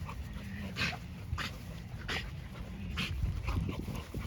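A worked-up dog breathing hard, with sharp noisy huffs about every two-thirds of a second, over a low rumble of wind or handling noise on the microphone.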